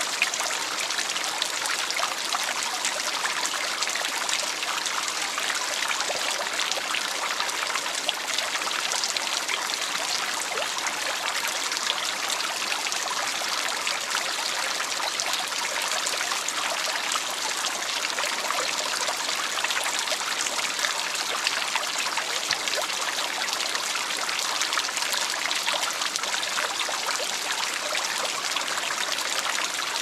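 Small shallow stream flowing steadily, an even rushing babble with light trickles and small splashes.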